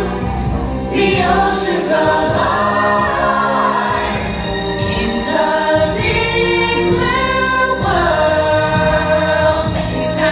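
A stage-musical song: several voices singing together with instrumental backing, heard from the audience seats of a large theatre.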